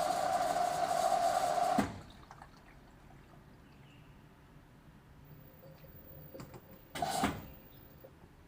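LG direct-drive washing machine draining: the drain pump runs with a steady hum and water rushing, then cuts off abruptly with a click about two seconds in. About seven seconds in, the pump runs again for a brief burst.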